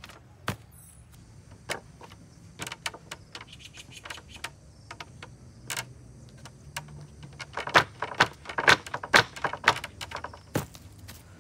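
Feet in sneakers stepping and bouncing on a plywood tabletop resting on a wooden folding sawhorse, with irregular sharp knocks and clicks as the top and legs take a person's full weight. The knocks are sparse at first and come thick and loudest in the last third.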